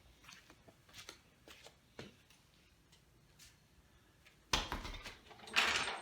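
Handling noises: scattered faint clicks and light knocks, then louder rustling and clattering with sharp knocks from about four and a half seconds in.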